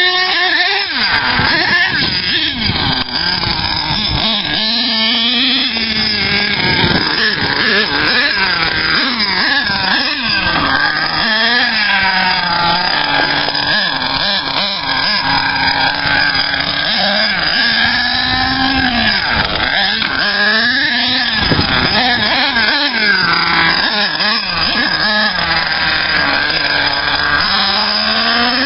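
HPI Savage RC monster truck's Axial .28 nitro two-stroke engine running hard and revving up and down over and over as the truck is driven, its pitch rising and falling throughout.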